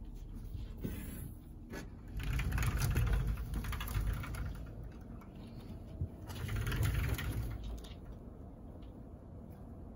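Curtain fabric rustling against the phone's microphone: two muffled, rumbling swells of rubbing noise, the first about two seconds in and the second a little after six seconds, with a few light ticks.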